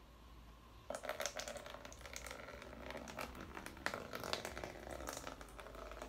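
Water poured slowly from a glass bottle into a plastic tub lined with paper towel: a dense run of small splashes and ticks that starts about a second in.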